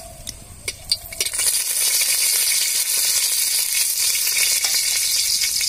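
Dried red chillies frying in hot mustard oil in an aluminium kadai, stirred with a metal spatula. A few light clicks come first, then about a second in the sizzling rises to a loud, steady hiss.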